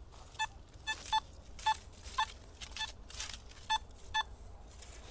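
Metal detector giving about seven short, high beeps, several in quick pairs, as its coil sweeps back and forth over the ground and signals buried metal. A couple of brief rustles come in between.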